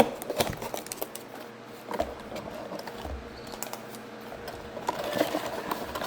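Irregular light clicks and taps of small plastic toy-brick pieces being handled, with a few sharper knocks among them.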